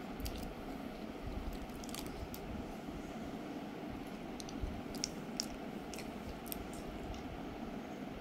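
A person chewing soft mango custard and cake close to the microphone, with a few sharp light clicks of a steel spoon against a glass bowl, over a steady low background hum.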